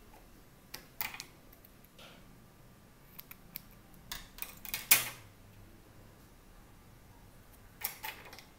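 Scattered small clicks and rustles of hands handling craft materials: a clear plastic ring, thin wires and stocking cloth. The sharpest click comes about five seconds in, with a last pair of clicks near the end.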